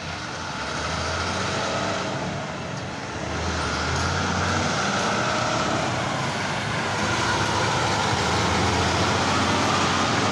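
Road noise of heavy truck traffic: a steady loud roar of engines and tyres at road speed, swelling slightly in loudness.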